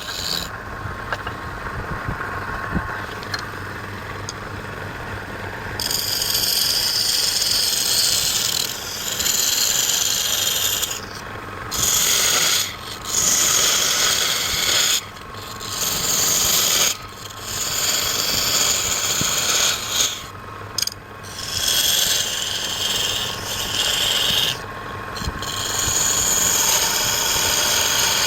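Wood being turned on a lathe: a cutting tool scraping the spinning wood in repeated passes of one to three seconds with brief breaks between them, louder after about six seconds.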